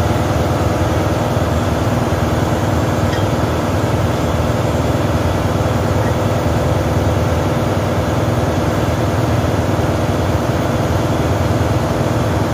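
Steady loud drone of running machinery in a ship's engine room, an even diesel-type hum with no letup.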